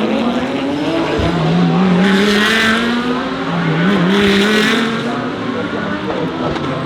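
DTM GT3 race car engines running on the circuit, their pitch rising and falling as the cars accelerate and lift. There are two short bursts of high squealing, about two and four seconds in.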